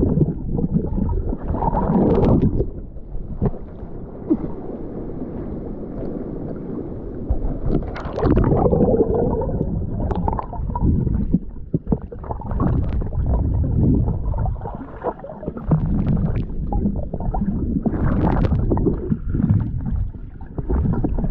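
Muffled underwater sound picked up by a camera held beneath the surface: water sloshing and gurgling in uneven swells, with scattered short clicks and knocks.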